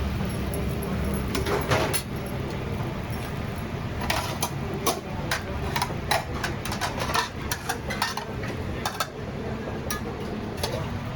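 Irregular clinks and knocks of metal utensils and dishes, like ladles and spatulas on dosa pans and plates, over a steady low rumble.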